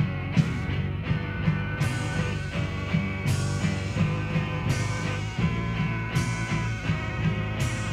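Recorded femme-punk no-wave rock song playing: a heavy repeating low riff, with a bright crash about every one and a half seconds.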